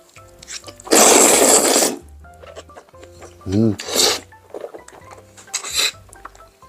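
Background music, with a loud rasping scrape lasting about a second, starting about a second in, and two shorter scrapes later.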